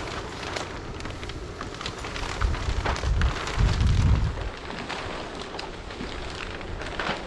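Greenhouse plastic sheeting crackling and rustling as it is handled and spread out, with wind rumbling on the microphone for a couple of seconds around the middle.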